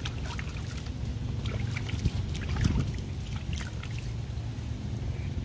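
A steady low rumble under scattered small clicks and rustles as a hooked fish is handled and unhooked by hand, with a couple of louder knocks about two to three seconds in.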